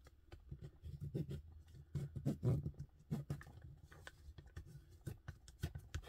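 Bone folder creasing the fold of a plastic transparency envelope: a run of soft, uneven scrapes and clicks as it is pressed and drawn along the edge over a cutting mat.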